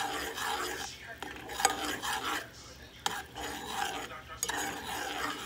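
Metal spoon stirring melted butter, olive oil, chopped garlic and parsley in a saucepan, scraping and swishing around the pan, with three sharper clinks against the side about every second and a half.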